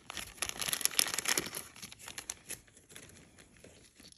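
Jewelry packaging crinkling as it is handled, a dense crackle for about two and a half seconds that then thins to a few light clicks.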